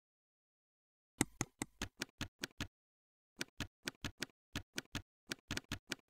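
Computer keyboard keystrokes clicking one per character as a name is typed: about seven quick keystrokes, a pause of under a second, then about a dozen more, with dead silence between them.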